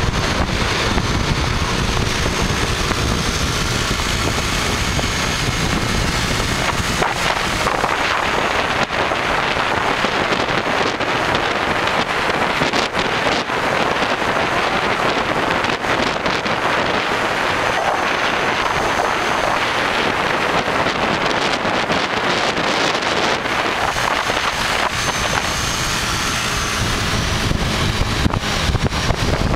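Steady wind buffeting on the microphone over road and engine noise while travelling at speed along a road.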